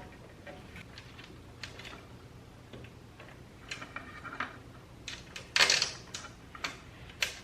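Scattered small clicks and light knocks of hand work with small parts and tools, more frequent in the second half, with one louder rustling scrape about five and a half seconds in, over a faint steady hum.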